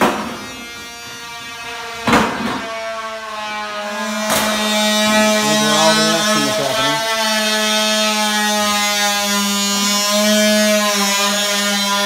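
Electric power tool motor running with a steady buzzing whine that wavers in pitch around the middle, with a few sharp knocks in the first few seconds.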